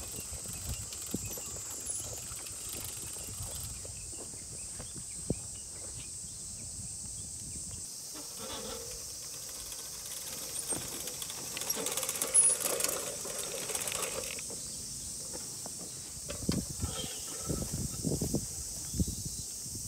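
Hand-pushed seeder rolling along a soil furrow sowing carrot seed, its wheels and seed mechanism clicking, with boots stepping in the soil, over a steady high hiss. A few louder knocks come near the end.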